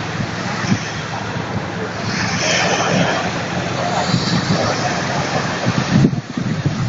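Wind buffeting the microphone over the wash of sea waves, with a steady low hum underneath.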